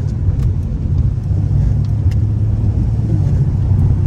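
Stage 2-tuned Mercedes-AMG C63's 4.0-litre V8 running at a steady cruise, a low, even drone with no rise or fall in revs.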